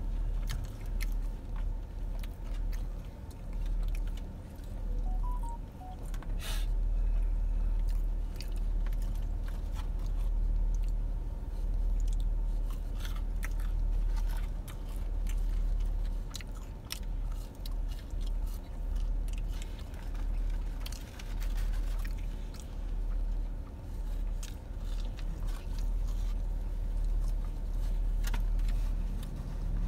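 Close-up chewing and crunching of fried chicken fingers, with scattered sharp clicks of biting and mouth noise, over a steady low rumble inside a car cabin.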